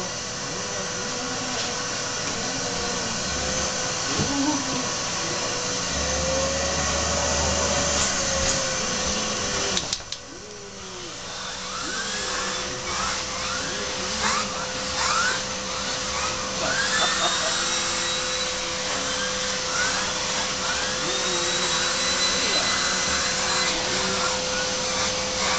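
Vacuum cleaner running steadily as its hose and brush nozzle are drawn over a dog's coat. About ten seconds in the sound drops briefly, and after that short tones rise and fall again and again over the steady noise.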